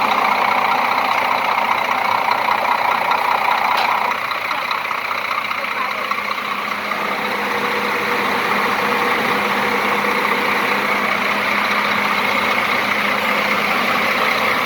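Scania K410 bus idling with its air-conditioning unit running: a steady mechanical hum with a few constant tones, dropping a little in level about four seconds in.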